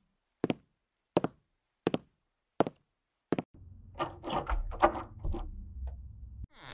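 Sound-effect knocks on a front door: five sharp, evenly spaced raps, about one every two-thirds of a second. A low rumble with scattered clattering follows in the second half.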